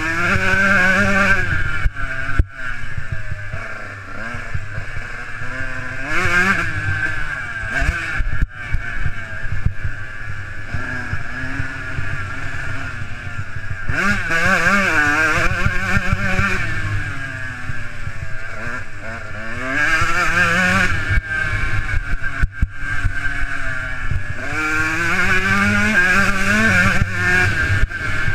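Motocross bike engine revving up and dropping back over and over as it accelerates and shifts along a rough dirt trail. Its pitch rises sharply about every five to six seconds, with a few brief cut-outs in between. Wind noise runs underneath.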